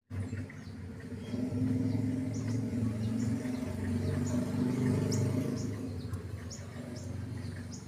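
Outdoor ambience: a steady low rumble, with small birds giving short high chirps repeated throughout.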